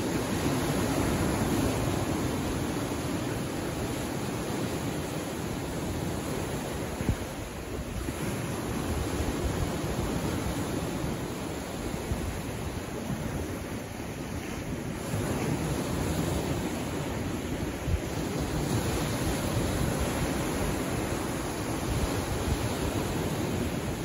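Small sea waves washing in over shoreline rocks: a steady rush of surf that swells and eases every few seconds, with a couple of brief sharper peaks.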